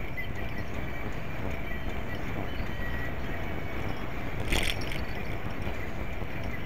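Steady low rumble of wind and tyre noise from a moving bicycle, picked up by a small bike-mounted action camera, with one short sharp knock about four and a half seconds in.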